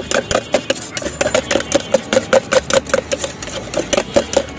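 A spoon stirring fast in a stainless steel cup, scraping and clinking against the sides about five times a second as it beats a thick, pulpy mixture.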